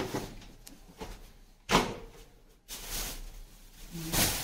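Plastic vegetable crates and a plastic bag of bottle gourds being handled on a concrete floor: a few knocks, the loudest and sharpest about two seconds in, with rustling noise after it.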